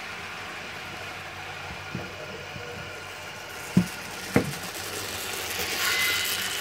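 Model railway train running over the layout's track, with a few sharp clicks along the way, then a louder rolling rush as the goods wagons come past close by near the end.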